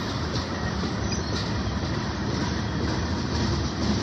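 Freight train cars, covered hoppers and boxcars, rolling past. A steady rumble of steel wheels on rail, with irregular clacks from the wheels.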